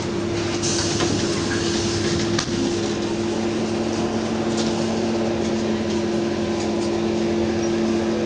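Trolleybus running, heard from inside the cabin: a steady electric hum over road noise, with a second, lower hum joining about three seconds in and a few light rattles.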